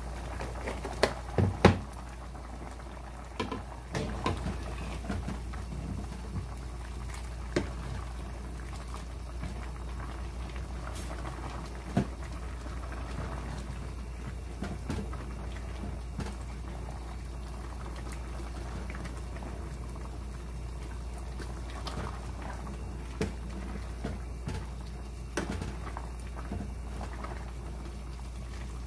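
A metal pot of spicy red chicken stew bubbling at a boil, with a ladle stirring it and knocking against the pot now and then; the loudest knocks come about a second and a half in. A steady low hum runs underneath.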